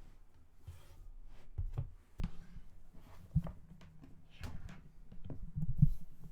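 Typing on an HH60 prototype mechanical keyboard with Original Aspiration switches, lubed with 205g0 and filmed, GMK Bleached keycaps and no plate or case foam. Irregular keystroke clacks come several a second, with a few louder, deeper knocks among them.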